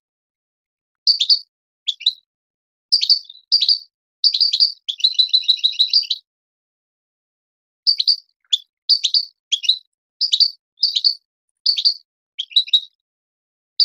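European goldfinch singing: short bursts of quick twittering notes, a rapid even trill about five seconds in, then after a pause of about two seconds a string of brief chirping phrases about every half second.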